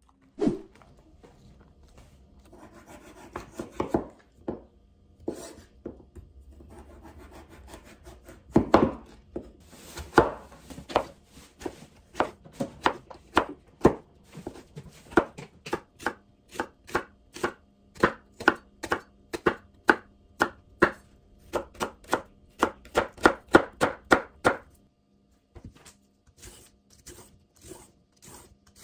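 Chef's knife chopping butternut pumpkin into cubes on a bamboo cutting board, a steady run of sharp knocks about two a second. Near the end the knocks stop, leaving only faint, light scraping of a vegetable peeler on a parsnip.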